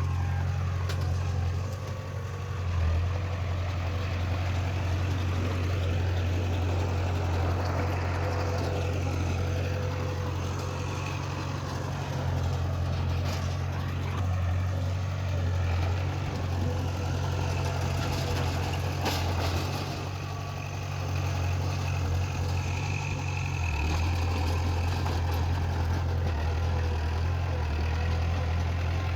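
Heavy earthmoving machinery's diesel engine running steadily, a continuous low drone with brief dips in level.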